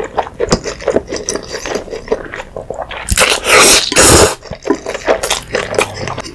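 A person slurping jjapaguri, saucy black-bean instant noodles, close to the microphone: two long slurps a little past halfway, with wet chewing and smacking between.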